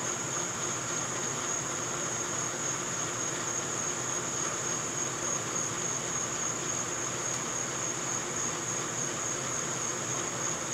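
Steady high-pitched insect chorus, one unbroken trill that holds the same pitch throughout.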